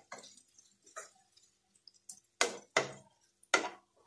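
Wooden spoon stirring and scraping chopped onions and tomato in a nonstick frying pan, in about five separate short strokes. The onion masala is being sautéed until the oil separates.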